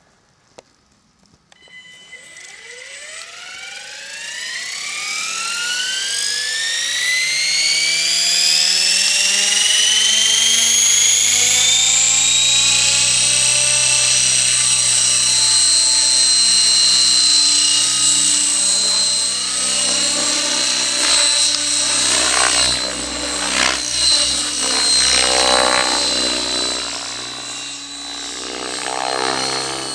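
Fusion 50 radio-controlled model helicopter spooling up from rest: a whine that rises steadily in pitch over about twelve seconds, then holds at flying speed. In the last third the sound swells and wavers as the helicopter takes off and flies.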